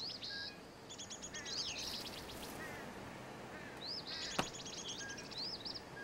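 Songbirds singing: rapid high trills and looping whistled phrases that repeat, over a faint outdoor background. A single sharp click comes about two-thirds of the way through.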